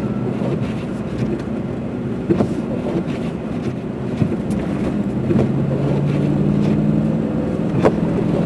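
Car engine running while driving on a snow-covered road, its note rising a little about five seconds in as it picks up speed, with a few short knocks.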